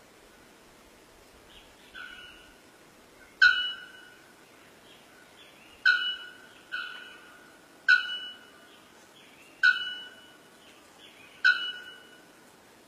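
Bare-throated bellbird calling: loud, sharp calls that ring briefly and fade, about one every two seconds, with softer calls in between.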